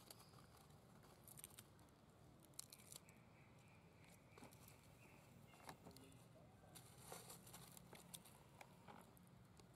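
Faint, scattered crackling and rustling of dry leaves as a macaque handles and tears a dead leaf, with a baby macaque's steps rustling through the leaf litter.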